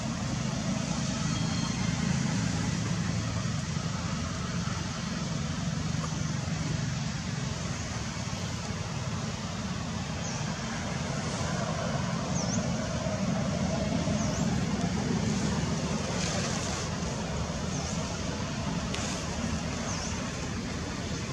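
Steady low background rumble with a hiss over it. A few brief high chirps come in the second half.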